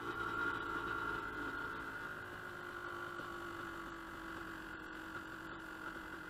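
Dirt bike engine idling with a steady, even hum.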